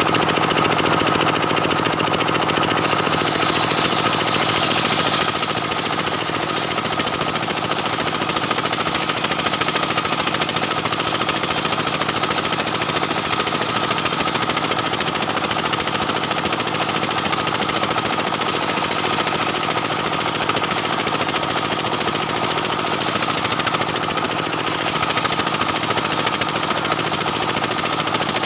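Stihl 070 two-stroke chainsaw running at full throttle under load, ripping lengthwise through a dense jackfruit-wood log; a loud, continuous engine-and-chain sound.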